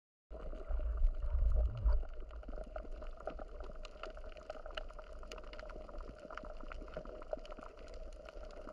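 Underwater ambience on a coral reef picked up by a GoPro: dense, irregular crackling clicks over a steady watery hiss, with a faint steady hum underneath. There is a low rumble of water moving past the camera between about one and two seconds in.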